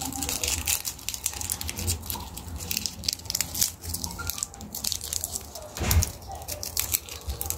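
Crinkling and crackling of a wad of printed paper being squeezed and crumpled in the hand close to the microphone, with a dull thump about six seconds in.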